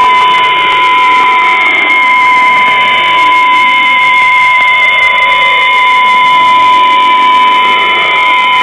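Unidentified signal received on the 4614 kHz shortwave frequency: a steady, unbroken beep tone with a second, higher tone and radio static behind it, heard through a receiver's narrow audio.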